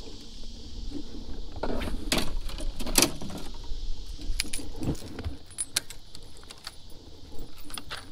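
Clicks, knocks and rattles of fishing tackle being handled on a boat: a baitcasting reel, rod and lure clattering, with the sharpest knocks about two and three seconds in.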